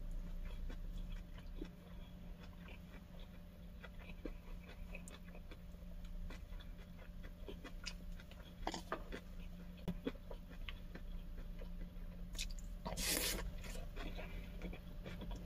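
A person chewing and biting into pork bulgogi wrapped in cabbage leaves, with soft mouth sounds and small clicks. A steady low hum runs underneath. One short, louder rustling burst comes about 13 seconds in.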